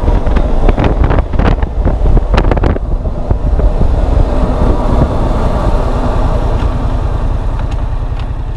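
Yamaha FZ-07 motorcycle under way: the engine runs beneath heavy wind rush over the microphone, with gusts of buffeting in the first few seconds. The overall level eases off slowly toward the end.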